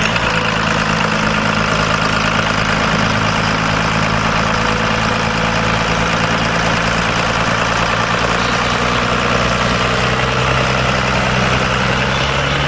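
Turbo diesel engine of a 1928 Dodge rat rod running steadily, without revving.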